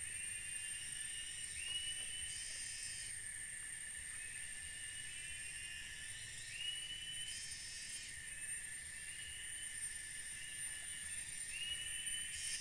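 Tropical forest insect chorus: a steady high-pitched whine under a lower buzzing call that rises and repeats every second or so, with a brief higher rasp about every five seconds.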